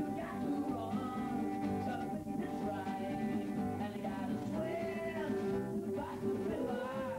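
A small acoustic band playing a song: a man singing lead over strummed acoustic guitar, with bass and other band instruments.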